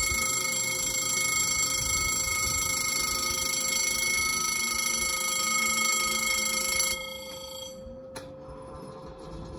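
Level-crossing warning bell ringing steadily as the barriers lower, cutting off abruptly about seven seconds in. A single sharp click follows about a second later.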